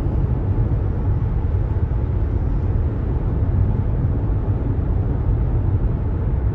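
Steady road and engine rumble of a car driving along, heard from inside the moving car, with no distinct events.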